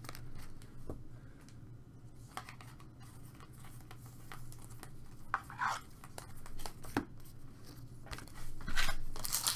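Chrome-finish trading cards being flipped through by hand, one card slid past the next: soft swishes and light clicks of card against card. A louder rustle near the end.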